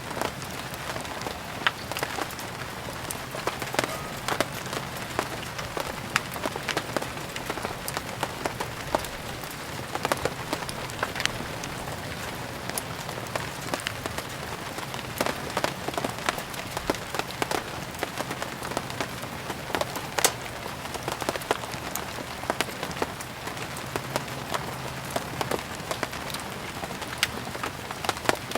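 Steady rain falling, mixed with frequent sharp, irregular crackles and pops of burning firewood.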